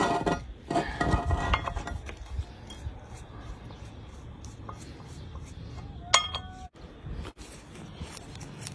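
Metal tools clinking and ringing against the bolts and housing of a combine harvester's variable-speed pulley as its ring of bolts is loosened. There are several clinks in the first two seconds and one sharp ringing clink about six seconds in.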